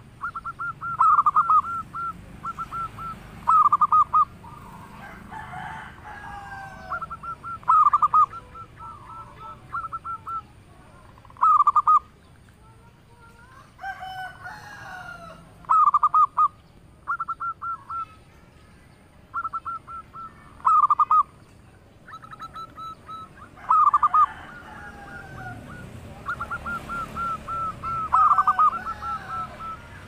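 Zebra dove (perkutut) cooing: short runs of rapid staccato coo notes, repeated every few seconds. Fainter calls of other birds come in between the runs.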